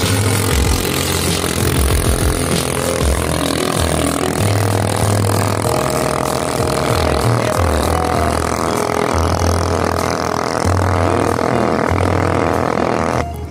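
Boat engine running hard at speed, a loud steady drone mixed with rushing water and wind noise, cutting off abruptly near the end.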